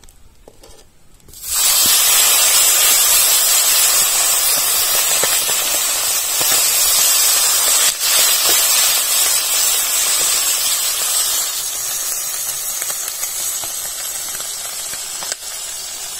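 Malgi fish dropped into hot oil in an iron kadhai: a loud frying sizzle that starts suddenly about a second and a half in and slowly dies down.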